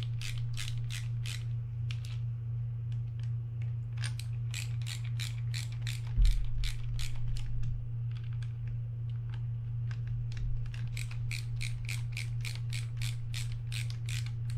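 Ratcheting screwdriver clicking in quick runs, about five clicks a second, as screws are backed out of a fishing reel. A low steady hum runs underneath, and there is a single knock about six seconds in.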